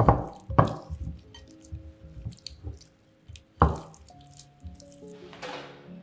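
Wet squelching of a raw chicken breast being pressed and rubbed by hand with an oily spice marinade in a bowl: a few sharp squishes at the start, about half a second in and past the middle. Soft background music plays underneath.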